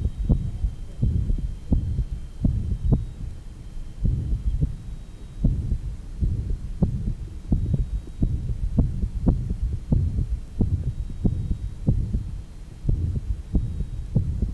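Heart sounds recorded at the left lower sternal border of a heart with rheumatic mitral stenosis and mitral insufficiency: sharp, regular beats with a low rumble between them, the murmurs of the diseased mitral valve.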